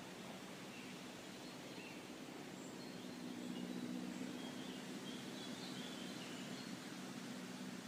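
Outdoor ambience: a few faint bird chirps over a low, steady hum that grows louder around the middle and then eases off.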